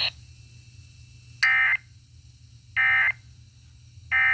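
Emergency Alert System end-of-message signal: three short bursts of buzzing digital SAME data tones about 1.3 seconds apart, marking the end of the severe thunderstorm warning broadcast.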